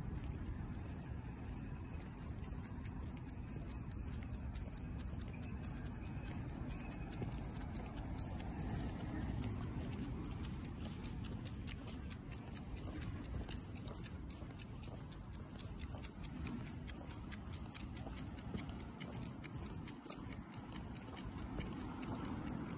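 Footsteps of a dog walk on asphalt pavement: rapid light clicks over a low steady rumble.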